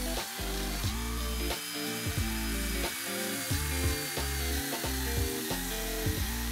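Milwaukee M12 battery pruning chainsaw cutting through a log, its electric motor whining steadily, under background music.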